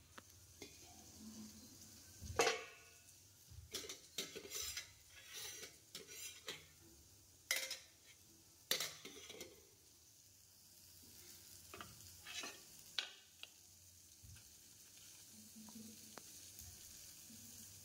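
Stainless steel kitchenware clinking: pot lids and a steel serving spoon knocking against steel pots in scattered short clanks, loudest about two and a half seconds in and again around eight to nine seconds, over a faint steady hiss.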